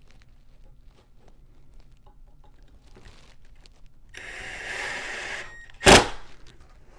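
A cordless drill briefly drives a bracket screw into the shelf, about a second and a half of steady whirring, followed by one sharp, loud knock. Light handling clicks come before it.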